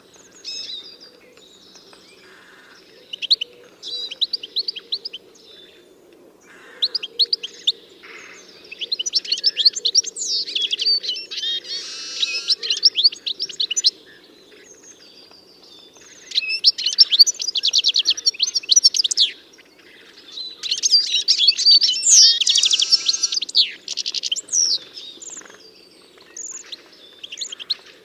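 Small songbirds chirping and twittering in rapid bouts of quick, high notes, with pauses between the bouts. A faint steady low hum runs underneath.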